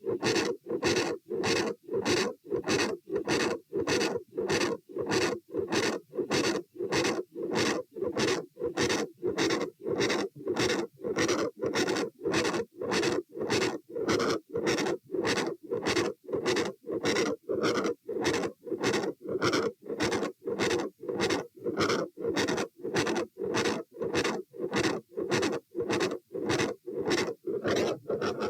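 Heart sounds heard through a stethoscope at the aortic area, a steady regular beat of short thuds. The recording labels them as a mid-systolic sound, a murmur at the second sound and a split S2.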